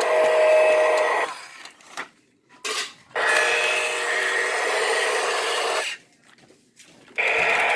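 Toy bulldozer running in bursts: a noisy, whirring mechanical sound that stops and starts several times, with a long run in the middle and a short blip before it.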